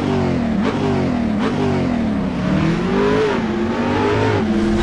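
An engine revving, its pitch rising and falling several times as the throttle is blipped, then holding steadier near the end.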